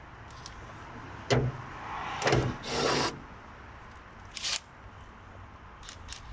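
Hand tools and metal parts being handled while unbolting a van's bonnet hinge: a sharp knock about a second in, then two short rough scrapes and, later, a brief rasp.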